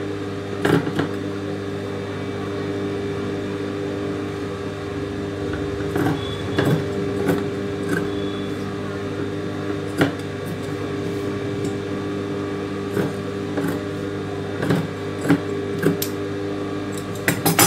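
Large steel tailor's shears trimming cloth on a table, with scattered snips and clicks of the blades. Under them runs a steady electric hum.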